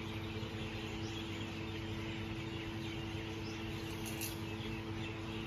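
Outdoor background: a steady low hum holding a few constant tones, with a few faint bird chirps over it.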